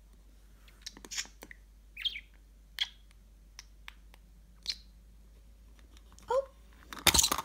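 Budgerigar giving short, soft chirps about once a second, with a brief gliding call near the end, followed by a loud short thump.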